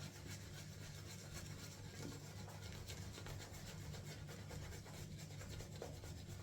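Shaving brush working lather on the skin, a faint soft rubbing and scratching, as the lather is rebuilt into a dense, creamy state.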